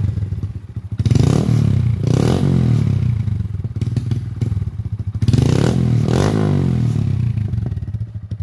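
A 2020 Honda Grom's 125 cc single-cylinder four-stroke engine is blipped several times through an aftermarket carbon-fibre slip-on exhaust. The pitch rises and falls with each rev, and between revs and near the end the engine settles back to idle.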